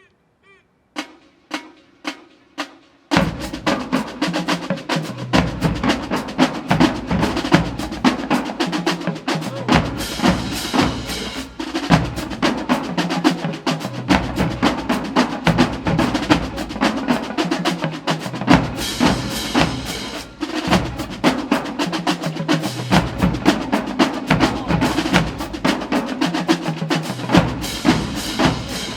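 Marching band drumline playing a cadence. A few sharp stick clicks count off, then snare and bass drums start together about three seconds in and keep up a fast, dense rhythm.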